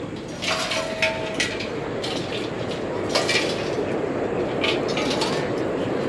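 Steady murmur of a large crowd outdoors, broken by several short, sharp clinks and clatters like metal being knocked together: a few within the first second and a half, one about three seconds in, and a cluster near five seconds.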